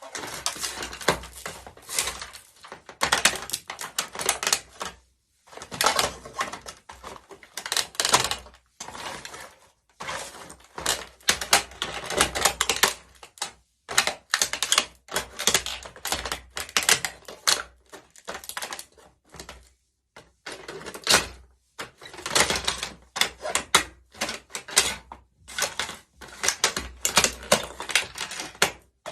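A plastic remote-controlled toy car being crushed under high heels: bursts of cracking and crunching plastic, one after another with short pauses between.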